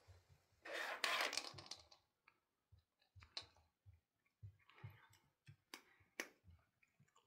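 Scattered plastic clicks and small knocks from a cat nosing at an orange plastic treat puzzle, with a louder rustling scrape about a second in.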